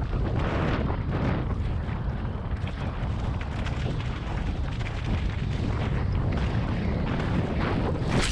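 Mountain bike ridden fast down a loose dirt trail: wind buffeting the on-board camera microphone, with tyres crunching and skidding over dirt and stones and the bike rattling. A sharp clatter comes right at the end.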